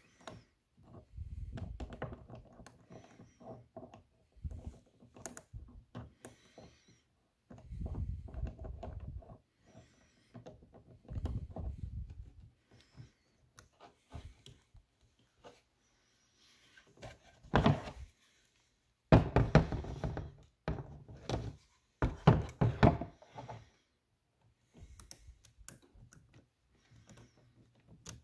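A Milwaukee ProPEX expansion head being threaded onto an M12 FUEL expansion tool and the tool handled in its moulded plastic case: irregular clicks, rattles and thunks, loudest in a cluster of knocks about two-thirds of the way through.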